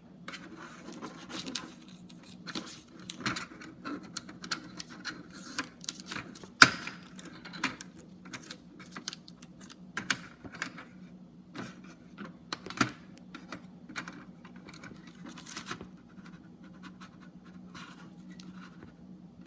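Irregular clicks, taps and rustles of hands handling a laser printer's plastic parts and its paper and tape packing, with one sharp knock about six and a half seconds in, over a steady low hum.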